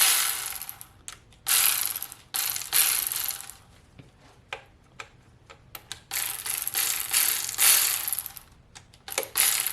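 Hand ratchet and socket clicking in repeated short strokes while loosening the connecting rod cap bolts on a GM 5.3 LS V8. There are about six runs of rapid clicks, each under a second, with a longer pause in the middle.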